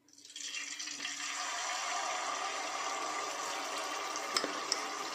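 Malpua batter hitting hot ghee in a kadhai and deep-frying with a steady sizzle that starts as the batter is poured and builds over about half a second. A couple of faint clicks come near the end.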